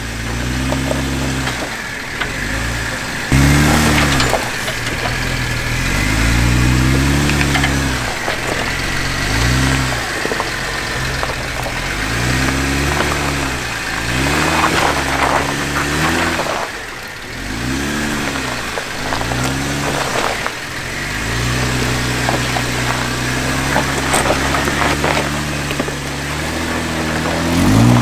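Jeep JK Wrangler Unlimited engine revving up and falling back again and again as it crawls up a rocky ledge with its differential lockers engaged, the tyres crunching over rock. It gets loudest near the end as the Jeep passes close by.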